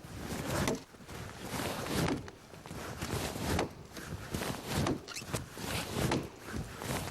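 Large axe chopping into a tree, a stroke about every second and a half.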